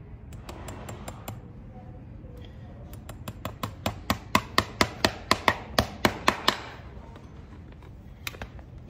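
Farrier's driving hammer nailing a steel horseshoe onto a hoof: a few light taps to start the nail, then a quick run of about fifteen strikes, some four a second, growing louder as the nail is driven home. A couple of lighter taps follow near the end.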